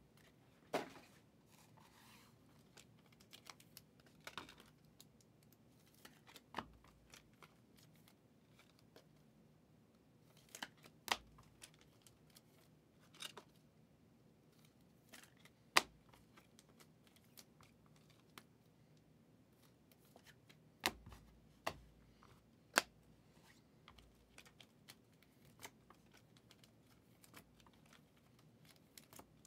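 Trading cards and packs being handled at a desk: scattered sharp clicks and taps a few seconds apart, with faint rustling between them.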